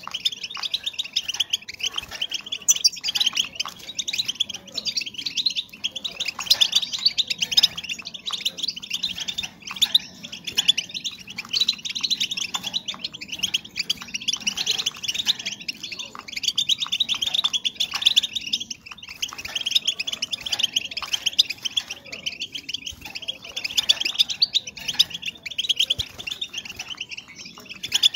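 Female European goldfinches twittering and chirping nonstop, a rapid run of high, quick notes with no pause. These are the sounds played to stimulate male goldfinches into breeding condition.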